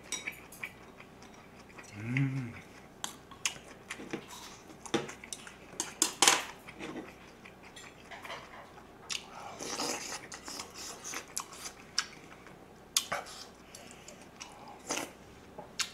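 Close-miked eating sounds: a spoon clicking against a small plate and dishes, with chewing and mouth noises, and a short hummed "mm" about two seconds in.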